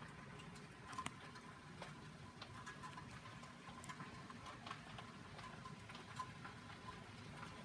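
Hail falling: a faint steady patter with irregular sharp ticks of individual hailstones striking.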